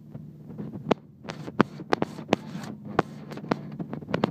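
Car driving on a snow-packed road, heard from inside the cabin: a steady low engine and road hum with irregular sharp knocks and clicks, several a second.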